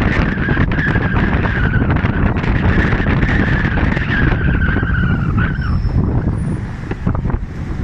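Steady rumble of a moving bus heard from on board, with wind on the microphone. A high whine drifts slowly down in pitch and stops about three-quarters of the way through.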